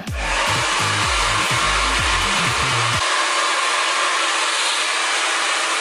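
Handheld hair dryer running steadily, blowing air onto short hair.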